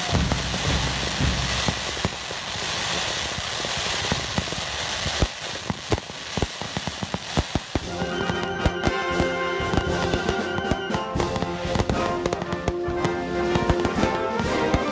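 Fireworks display: a dense, hissing crackle at first, then a quick run of sharp bangs and crackles. Music with sustained tones comes in about eight seconds in and plays over the bangs.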